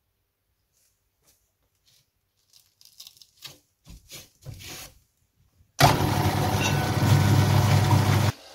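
A few short scratchy rustles as a hook-and-loop sanding disc is pressed onto a drill press's backing pad. Then the drill press motor is switched on and runs steadily for about two and a half seconds before it is switched off and winds down.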